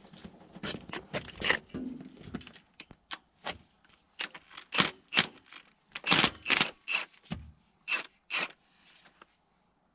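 Hand tools clinking and scraping against the metal of a John Deere stationary engine during clutch removal: a string of sharp metallic clicks and clanks, the loudest in the middle.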